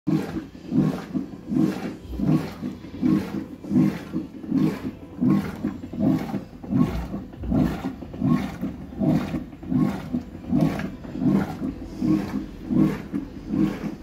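Electrolux Ecologic LEC12 top-load washing machine agitating a load of clothes: the direct-drive motor swings the agitator back and forth, churning the water and laundry in a rhythmic swish about once every three-quarters of a second.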